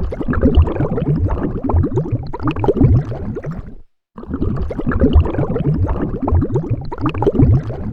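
Underwater bubbles: a dense, continuous stream of bubbling pops. It cuts out for a moment just before halfway through, then resumes.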